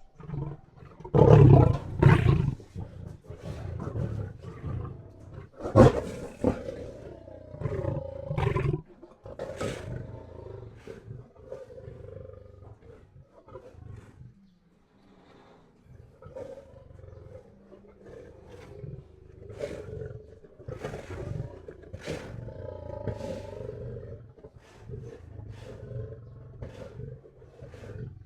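Lion sound effects: a series of lion roars, loudest in the first few seconds, then quieter calls with a short pause about halfway through.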